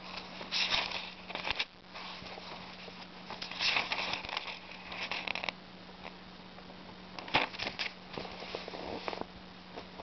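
Paper pages of an old book rustling as a hand handles and turns them, in three bouts of a second or two each, over a faint steady hum.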